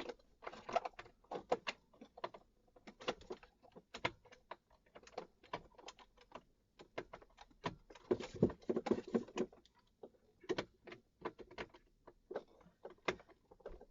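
Hands working plastic wiring connectors and dash trim behind a car's instrument cluster: irregular plastic clicks and rattles, several a second, busiest about eight seconds in.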